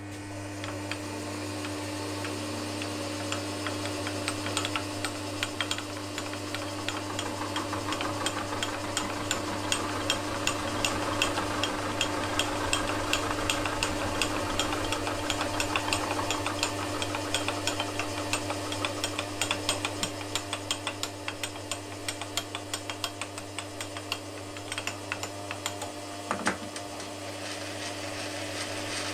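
Milling machine running with a face mill taking light skimming cuts across the top of an aluminium billet: a steady motor hum with rapid, even ticking as the cutter bites. These are shallow passes to find the high spots before deeper cuts.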